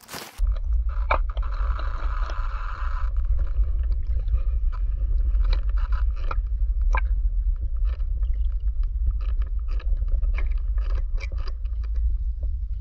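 Muffled underwater sound picked up through a waterproof action camera's housing: a deep, steady rumble of water movement with scattered sharp clicks and taps.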